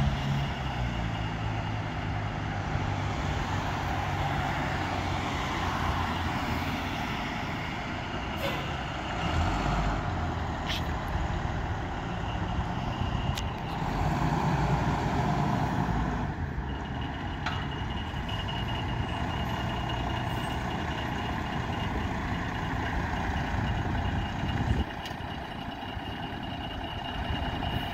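Fire engine's diesel engine running, growing louder about halfway through as the truck pulls out of the station bay, with a thin high-pitched warning beeper sounding over it and a few sharp clicks.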